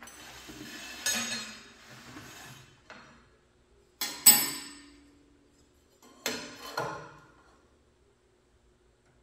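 Metal tools and parts clattering and knocking: a scraping clatter at first, then two sharp metallic knocks about four seconds in, the second one ringing briefly, and two more knocks a couple of seconds later.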